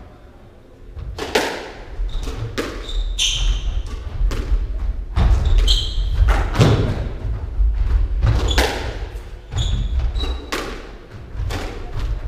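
Squash rally in an enclosed court: sharp, echoing knocks of the ball off the rackets and walls, roughly one a second from about a second in, with short high squeaks of shoes on the wooden floor and the thud of footfalls.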